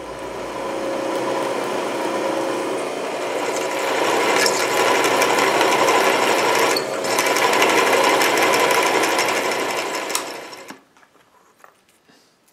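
Drill press running with its twist drill cutting into a metal workpiece, boring intersecting chip-relief holes; the cutting noise builds about four seconds in, dips briefly, then cuts off suddenly near the end, followed by a few faint clicks.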